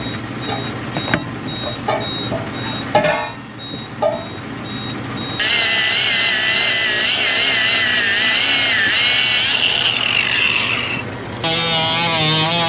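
Power cutting tool working into an old scraper tire in two runs. Before it, a few knocks and clicks. The first run starts about five seconds in as a loud whine whose pitch wavers with the load, and dies away around ten seconds. The second run starts near the end with a lower buzzing note.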